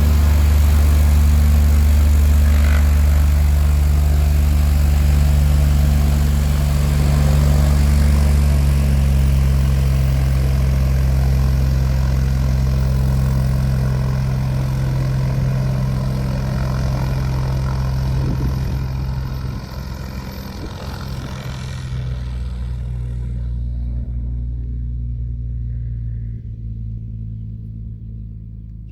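Cessna 180A's six-cylinder Continental O-470 engine and propeller running steadily at a constant speed, then growing quieter and duller over the last several seconds.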